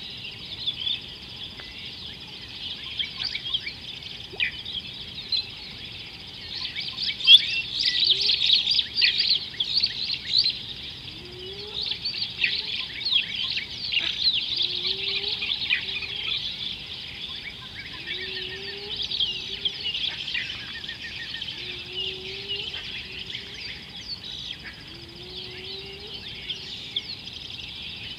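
Many wild birds chirping and calling together, busiest and loudest in the middle. Under them, a short, low, rising call repeats about every two seconds through the second half.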